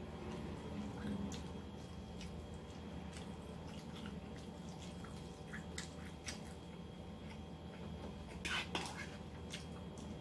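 A person eating close to the microphone: chewing with scattered small wet mouth clicks, over a steady low hum. A little over eight seconds in come two louder, sharper noisy sounds.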